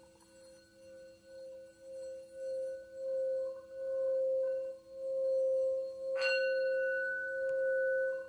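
Small 11 cm Tibetan singing bowl tuned to B, held on the palm and rubbed around the rim with a bare wooden mallet: a steady singing tone that swells about once a second and builds up in loudness. There is a brief click about six seconds in.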